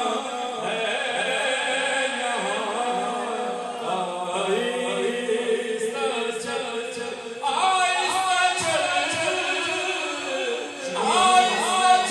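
Men singing a naat, an Urdu devotional song, unaccompanied, with voices chanting together, and new phrases starting about halfway through and near the end.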